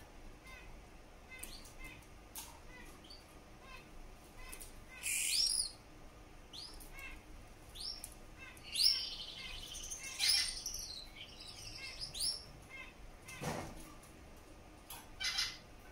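Male Gouldian finch singing its quiet courtship song: a string of thin, high chirps and short rising squeaky notes broken by a few longer buzzy phrases. A soft thump comes about three-quarters of the way through.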